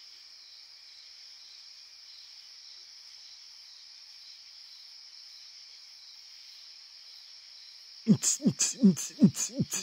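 Steady high-pitched chorus of night insects such as crickets. About eight seconds in, a much louder, quick run of short voice-like calls with falling pitch, about four or five a second, cuts in over it.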